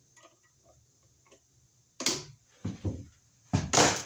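Cut-off pieces of copper wire clattering into a garbage can: a sharp click about two seconds in, a few softer knocks, then a louder clatter near the end.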